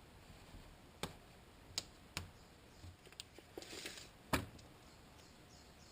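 Hands working strips of duct tape on a work surface: a few sharp light taps and clicks, with a short rasp a little past halfway.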